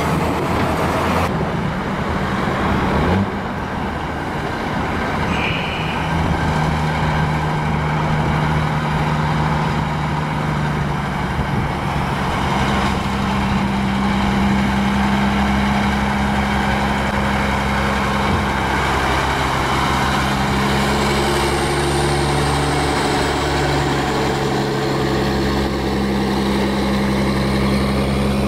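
Heavy diesel trucks hauling oversize loads passing close by, their engines running steadily with a low pitch that changes from one shot to the next, over tyre and road noise.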